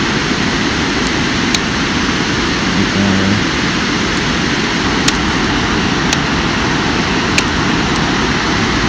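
Steady rushing outdoor noise, with a few separate sharp clicks spread through it as the baitcasting reel's drag is backed off.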